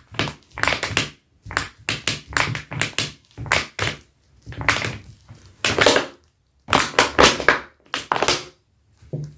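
Dr Martens leather boots rubbed against each other, squeaking and scuffing in quick, loud strokes that come in clusters with short pauses between.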